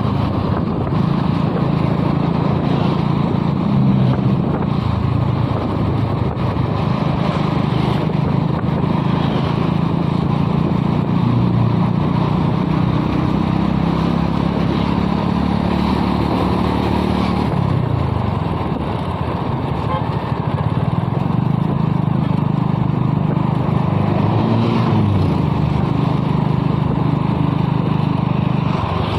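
A motor vehicle engine running continuously. Its pitch falls off about two-thirds of the way through, then rises briefly and settles again, as with changes in engine speed.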